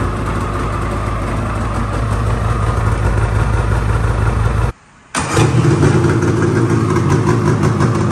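2021 Polaris Indy VR1 850 snowmobile's two-stroke twin engine running steadily through a newly fitted GGB trail can exhaust. A short silence a little past halfway, after which the engine is louder.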